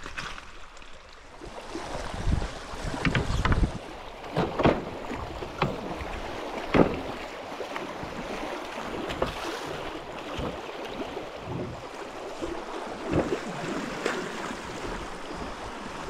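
River water rushing through a shallow riffle, with wind buffeting the microphone for a couple of seconds early on and a few sharp knocks scattered through.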